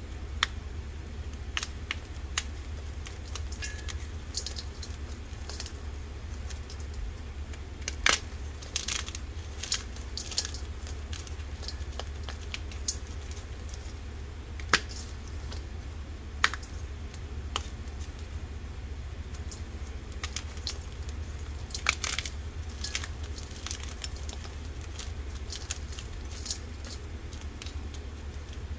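A boiled, dyed block of gym chalk being crumbled and crushed between the fingers: scattered soft crunches and crackles, with a handful of louder sharp snaps as chunks break, over a steady low hum.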